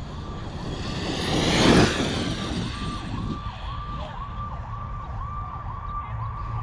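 Arrma Kraton 8S brushless electric RC truck passing at full speed: its high motor whine swells, peaks and drops in pitch as it goes by, about two seconds in. A repeating siren-like tone about twice a second sounds throughout.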